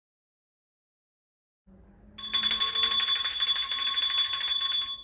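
A bell ringing with rapid, continuous strikes for about two and a half seconds, starting a little past two seconds in and cutting off suddenly near the end.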